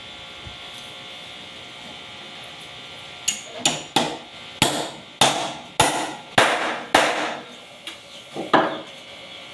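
Claw hammer nailing the backrest onto a mango-wood bench: after about three seconds, eight sharp strikes come roughly every half second, then two quick strikes near the end.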